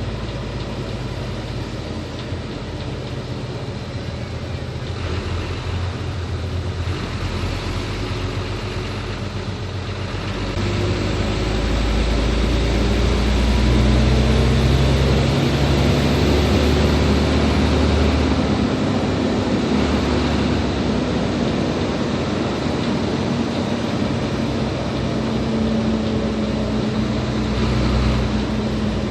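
Hino 500 logging truck's diesel engine running while driving, with tyre and road noise. About ten seconds in it grows louder and its note climbs slowly as it pulls harder, then settles at a steady pitch.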